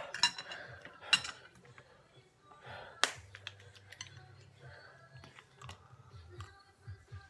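Scattered light clicks and taps from utensils, bowls and a plastic water bottle being handled at a table, with one sharper click about three seconds in.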